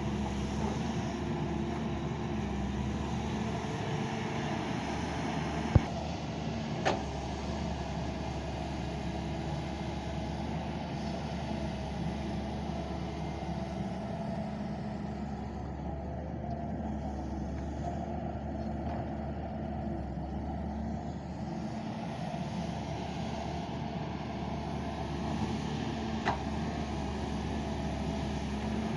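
Doosan excavator's diesel engine running steadily, with a few short sharp knocks, the loudest about six seconds in.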